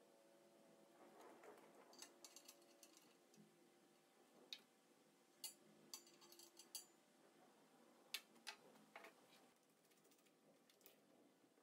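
Near silence broken by faint, scattered clicks and light taps of tools and steel pieces being handled on a metal frame.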